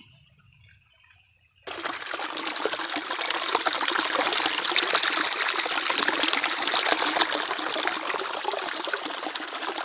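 Water running and trickling steadily, starting suddenly a little under two seconds in.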